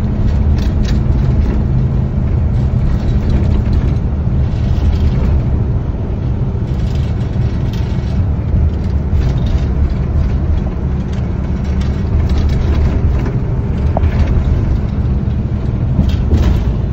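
Steady low engine and road rumble heard from inside a moving vehicle's cabin.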